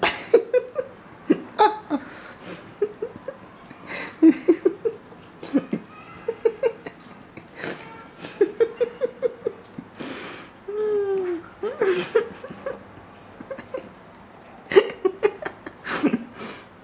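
Pet cats calling while they play with a foxtail grass stalk: short quick chirps, some in runs of four or five, and a drawn-out falling meow about eleven seconds in, with sharp taps among them.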